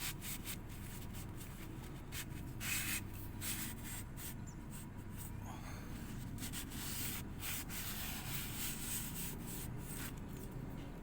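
Tissue rubbed along a heavily rusted spring-steel celurit blade to wipe off the rust, a dry scratchy rubbing in repeated, irregular strokes.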